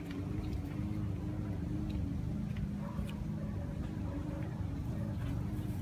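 A steady low engine hum with a rumble underneath, holding an even pitch throughout.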